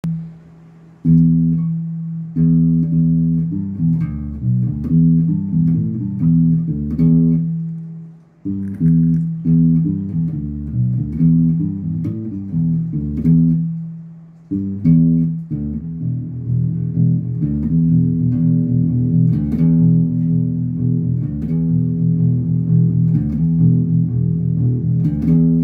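Old Fender Precision electric bass played fingerstyle, a run of plucked low notes in three phrases with short breaks about 8 and 14 seconds in.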